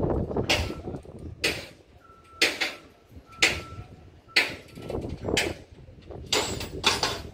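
Backup alarm of a site vehicle pulsing: a hissing pulse about once a second, with a fainter beep tone sounding between the pulses. Low engine rumble underneath in the first second.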